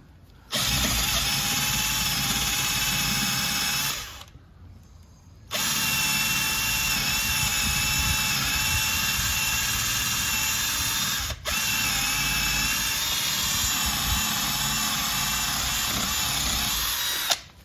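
Power drill running at steady speed in three long runs with brief stops between, boring into a fibreglass boat's transom to check the marine ply core for moisture.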